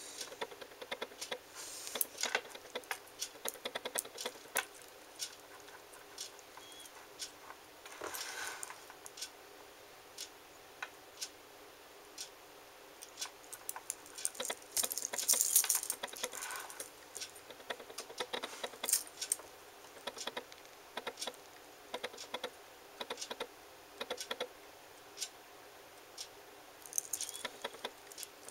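Metal link watch bracelet clinking and clicking as the watch is handled and turned over, in many irregular sharp clicks. A few longer scraping bursts come about eight and fifteen seconds in.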